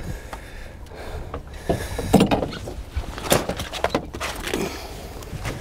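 Scattered knocks and thuds of the rod, landing net and fish being handled against a small boat's hull and deck, over a low rumble of wind on the microphone.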